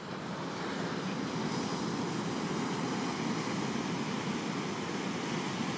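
Steady rushing noise of ocean surf and wind on the microphone.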